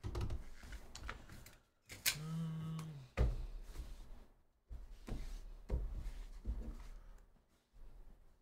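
Soft thuds and taps of things being handled and set down on a padded table mat, the loudest a little over three seconds in, with a brief hummed voice about two seconds in.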